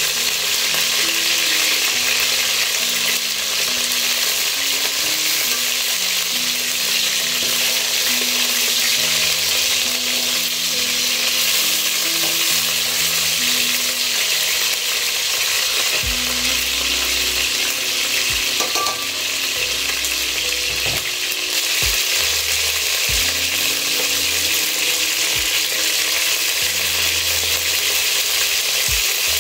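Chicken pieces sizzling as they fry in hot oil in an aluminium pot. Occasional sharp clicks of metal tongs against the pot come mostly in the second half, as the pieces are turned.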